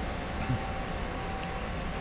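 Steady machine-shop background hum with a faint, steady high whine.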